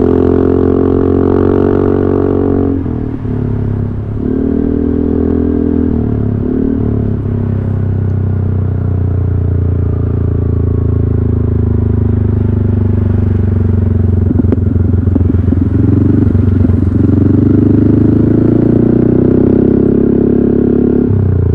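Yamaha XMAX 300 scooter's single-cylinder engine through a GP Racing aftermarket exhaust, heard from the rider's seat while riding. The exhaust note rises and falls with the throttle: it drops off briefly about three seconds in and again a few seconds later, then holds a steady cruise before climbing again near the end.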